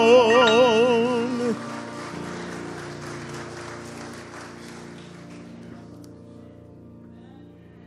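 A baritone voice holds a hymn's final note with a wide vibrato and releases it about a second and a half in. The accompaniment's last chord rings on and slowly dies away, under light applause.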